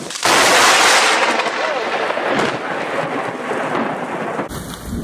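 A thunderstorm with heavy rain: a loud, steady hiss of pouring rain with thunder in it. It starts suddenly and cuts off abruptly about four and a half seconds in.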